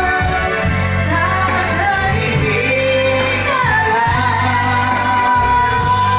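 A woman singing a slow melody with long held, wavering notes over loud backing music.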